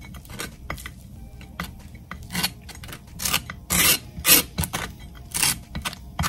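Table knife scraping across dry toast as it spreads a cold wedge of soft cheese: a run of short, uneven scraping strokes, the loudest about four seconds in.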